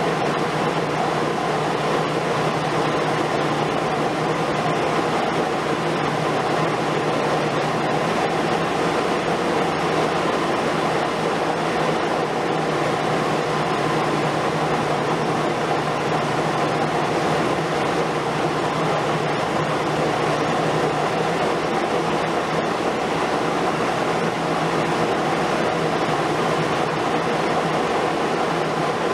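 Excavator diesel engines and hydraulics running under load, a steady, even drone.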